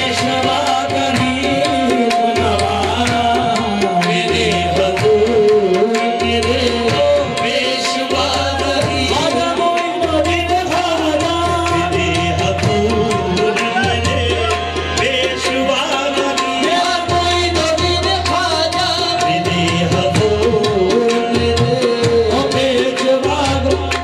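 Qawwali music: a harmonium holding a steady drone note under wavering sung melody, with tabla keeping a steady rhythm.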